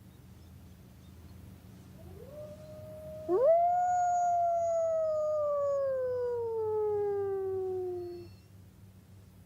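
Timber wolf howling: a softer rising call about two seconds in, then one long loud howl that rises quickly and slides slowly down in pitch for about five seconds before stopping.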